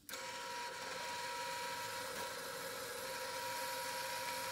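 Drill press motor switched on and running steadily: an even whine with a light hiss that does not change.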